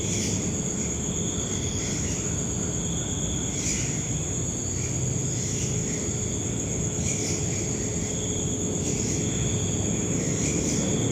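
Crickets trilling steadily in a high continuous tone, with a second, lower trill that comes and goes, over a low background rumble.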